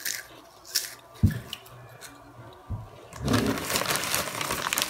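Crisp snack sticks being bitten and crunched, with a few sharp crunches and dull thumps. From about three seconds in, a plastic snack bag crinkles and rustles densely.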